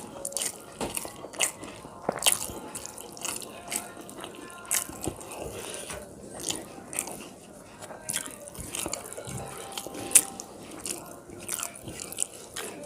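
Close-up wet chewing and mouth smacking of someone eating rice and fish curry, with many short, irregular clicks.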